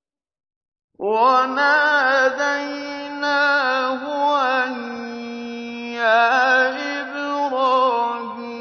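Silence for about a second, then a man's voice chanting Quranic recitation in the slow, melodic mujawwad style, holding long notes with ornamented turns.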